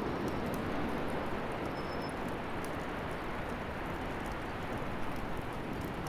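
Wood bonfire burning: a steady rushing noise with scattered small crackles.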